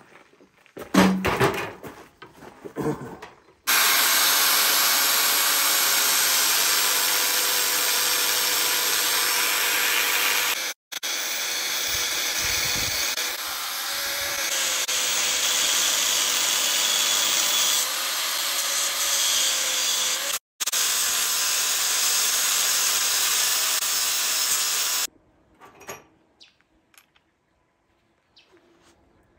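Angle grinder with an abrasive cut-off disc cutting through a steel I-beam: a loud, steady, harsh grinding hiss over the motor's whine, whose pitch wavers slightly under load. It is broken twice by abrupt cuts and stops near the end, with a few clicks and knocks of handling before and after.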